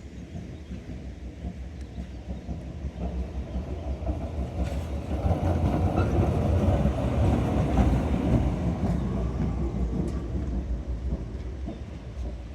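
Kirnitzschtalbahn tram running on its track, a low rumble that builds to its loudest about halfway through and then eases off.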